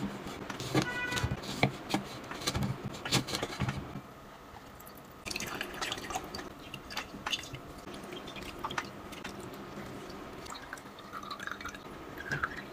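A knife cutting through green lemons, with knocks of the blade on a wooden plate. After a short pause about four seconds in, a plastic hand press squeezes the lemon halves, the juice dripping and trickling into a glass.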